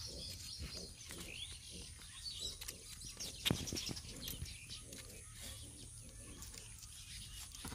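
Kitchen knife cutting through raw liver on a banana leaf, with small wet cutting clicks and one sharper knock about three and a half seconds in. Birds chirp in the background.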